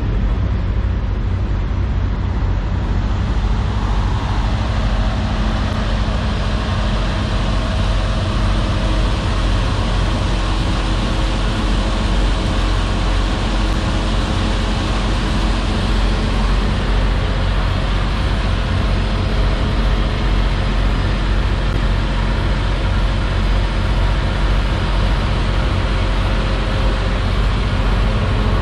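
Semi-truck diesel engine idling steadily: a low, even drone that holds without change.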